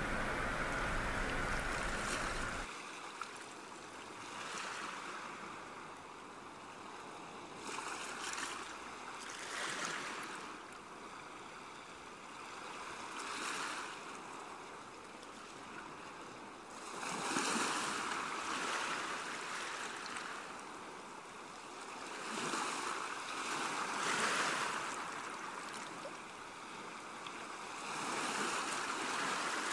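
Steady rushing water with a low rumble for the first few seconds, then ocean surf: waves breaking and washing up a shore, swelling and falling back every few seconds.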